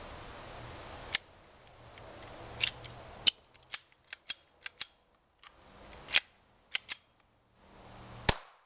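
Semi-automatic pistol being cleared of a double feed: a rapid string of sharp metallic clicks and clacks as the slide is locked back, the magazine dropped, the slide racked several times in quick succession, a fresh magazine slammed home and the slide racked again. A last loud crack comes near the end, when the pistol is back on target.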